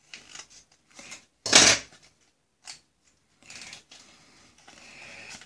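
Scissors cutting open small-item packaging, with crinkling and rustling of the wrapping; the loudest is a short sharp crackle about a second and a half in.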